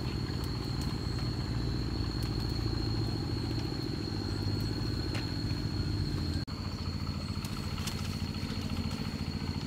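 Small motorcycle engine running steadily under a steady high-pitched whine. The sound breaks off for an instant about six and a half seconds in.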